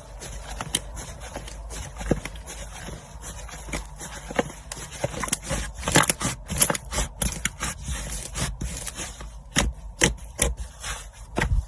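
Slime being squished and stretched by hand, making irregular clicking and popping sounds that come thicker about halfway through and again near the end.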